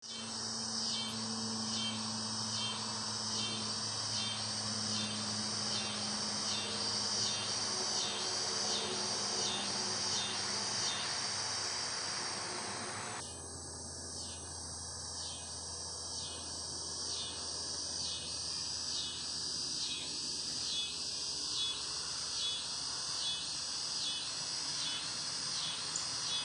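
Cicadas calling in a chorus, a high-pitched buzz that pulses in an even rhythm of about two beats a second. About halfway through, a low background hum cuts off abruptly while the insect rhythm carries on.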